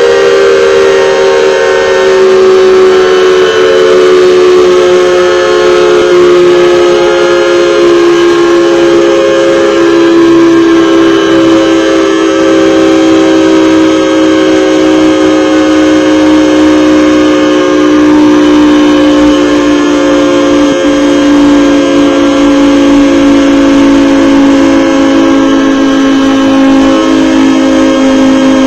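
Federal Signal 2T22 dual-tone mechanical siren sounding loud and steady, its tones slowly sliding lower in pitch.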